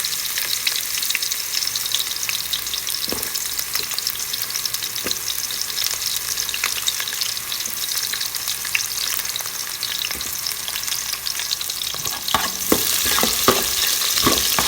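Ginger and onion sautéing in hot oil in a pan: a steady crackling sizzle, with a utensil stirring and clicking against the pan, the clicks louder and more frequent near the end.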